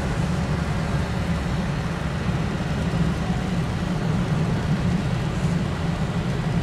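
Steady road noise from inside a moving car's cabin, with a low, even hum.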